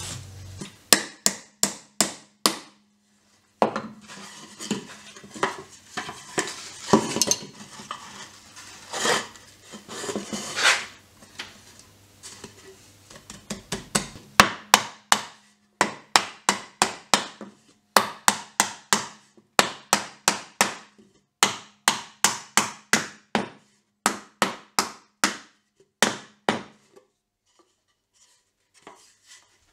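Wooden mallet knocking on pallet-wood boards in runs of sharp strikes, about two a second, with a stretch of scraping wood between the runs.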